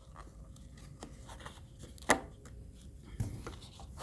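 Handling noise as a knife sheath is taken out of its box: light rubbing and scattered taps, with one sharp click about two seconds in and a duller knock about a second later.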